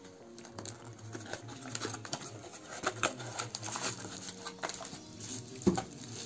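Cardboard box and plastic packing wrap being handled and opened: irregular rustling and crinkling with small clicks, and one sharper knock near the end.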